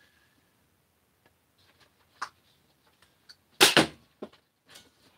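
A Caliburn spring-powered foam-dart blaster fires once, about three and a half seconds in: a single loud, sharp snap as the plunger slams forward and the dart leaves, released from its steel nail sear. A small click comes about a second before the shot and a lighter knock just after it.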